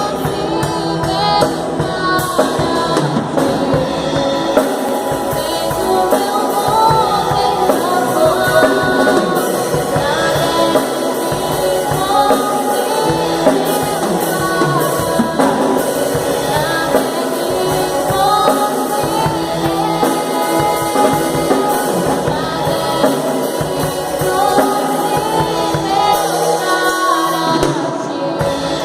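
Live gospel worship band: a woman singing over drum kit and electric guitar.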